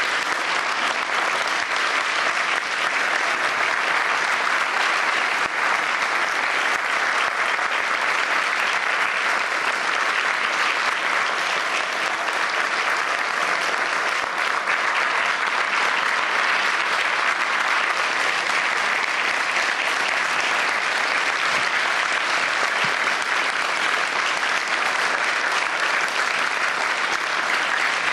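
A large seated audience applauding, a dense, steady clatter of many hands that goes on without a break.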